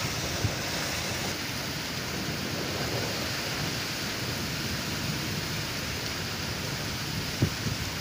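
Heavy rain pouring steadily, with water gushing from a drain pipe onto the flooded ground. A brief low knock comes just after the start and another near the end.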